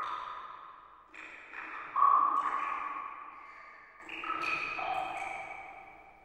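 Background music of slow, ringing notes, each one struck and then fading out, new notes entering about a second in, around two seconds in and again around four seconds in.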